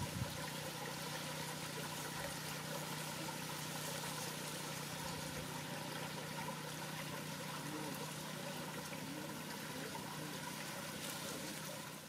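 Steady outdoor background noise, like running or trickling water, with a constant low hum under it.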